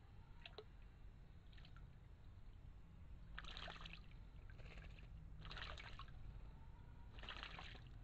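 Eurasian jay bathing in a shallow stream pool, splashing the water in four short bouts about a second apart in the second half.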